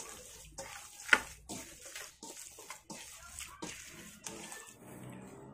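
Ground meat mixture being kneaded and squeezed by hand in a stainless steel bowl: faint, irregular wet squishes and slaps, about two a second, easing off near the end.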